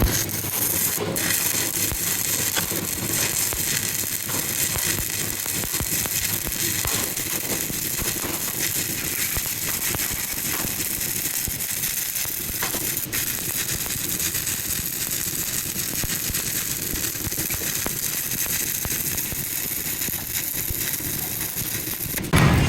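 Stick-welding arc from a 3.2 mm E7018 electrode burning steadily through a vertical fill pass, a continuous crackling hiss. The arc breaks off near the end.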